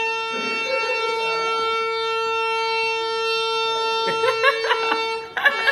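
Harmonium holding one steady reed note, played to imitate a train horn. The note breaks off briefly near the end and sounds again.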